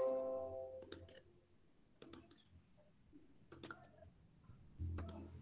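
Computer mouse clicking a handful of times, some clicks in quick pairs, while presentation slides are paged through, over a low steady hum. A brief tone opens it and fades within about a second.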